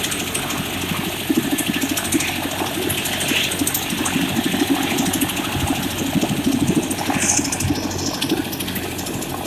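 Helicopter engine and rotor running steadily, with a rapid, even pulsing.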